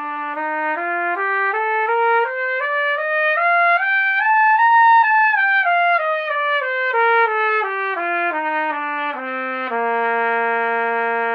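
Trumpet playing a C major scale in short separate tongued notes, stepping up two octaves to the top note near the middle and back down, then holding the low tonic as a long note near the end.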